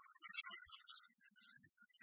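Near silence, with faint, broken-up background music.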